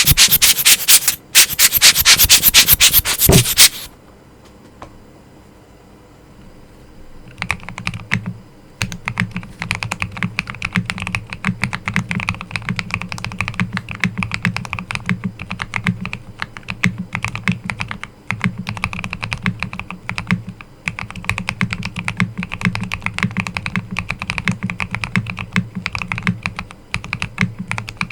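Typing on a Hello Again M0110 custom keyboard with Akko Silver POM linear switches: an irregular, continuous patter of key presses with a deep low note under each click. It opens with a very loud, dense rattle of clicks for about four seconds, then a few seconds of quiet before the typing starts about seven seconds in.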